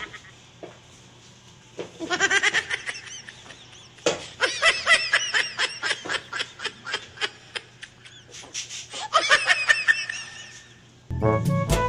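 Three bouts of high-pitched laughter in quick repeated 'ha-ha' pulses, the longest in the middle. Brassy, jazzy music starts abruptly just before the end.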